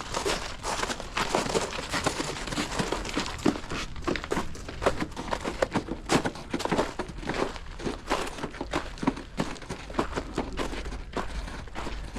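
Crunching footsteps, irregular steps with rustling close to the microphone.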